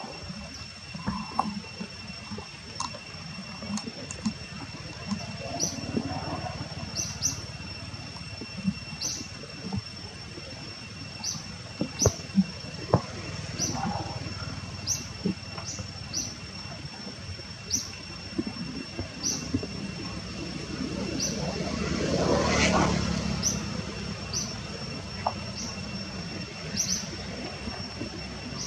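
Outdoor forest ambience: a steady high insect drone, with short chirps repeating about once a second. A few sharp knocks come near the middle. A distant engine noise swells and fades, loudest about three-quarters of the way through.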